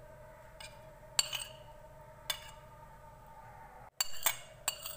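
A china plate clinking lightly against a glass bowl as grated garlic is tipped and scraped into it: about half a dozen short clinks at uneven intervals, with a pause in the middle.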